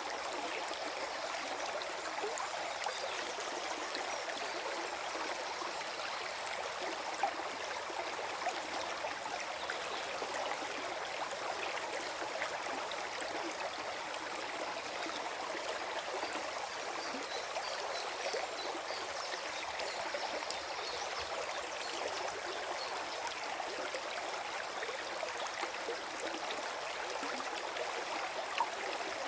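Small forest stream flowing and gurgling steadily over stones, with fine splashing and trickling.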